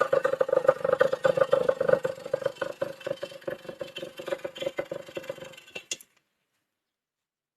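Yamaha RX-Z's single-cylinder two-stroke engine running with a rapid crackling exhaust beat. It fades over the following seconds, then cuts off abruptly about six seconds in.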